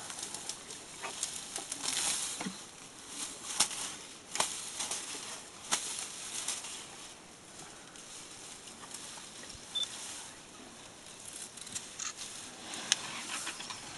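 African elephant browsing on bush at close range: leaves rustling, with several sharp snaps and cracks of twigs and branches as it tears and chews foliage. The cracks cluster in the first half, with a quieter stretch, and one loud snap near the end.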